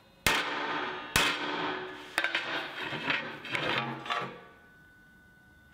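Hammer striking a plate of welded steel strips on a steel welding table to flatten strips that aren't quite flat. Two sharp, ringing blows about a second apart come first, then a few lighter metal clanks as the plate is handled and tipped up.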